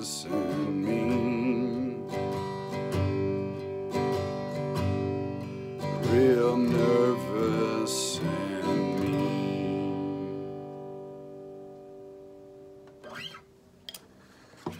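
Steel-string acoustic guitar strummed through the last bars of a song, with a few held, wavering sung notes over it; the final chord rings out and fades away over a few seconds. A few short knocks follow near the end.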